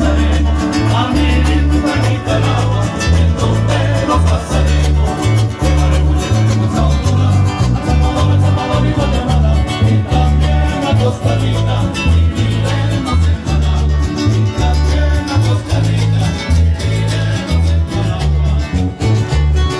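Live Nicaraguan folk band of accordion, acoustic guitars, electric bass and keyboard playing an instrumental passage, over a bass line that pulses in short, evenly spaced notes.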